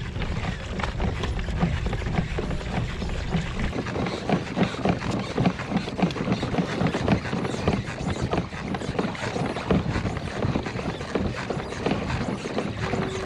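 Quick, irregular clicks and knocks from a pedal fishing kayak and its rod and reel while a king salmon is fought on the line, over a hiss of water and wind. A low rumble drops away about four seconds in.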